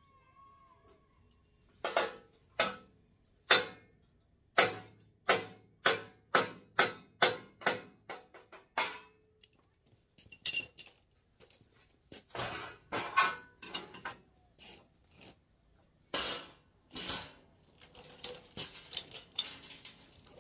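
Sharp metallic knocks and clanks on a steel truck bumper as it is worked loose and taken off. A steady run of about a dozen strikes, roughly two a second, is followed by scattered, irregular clanks.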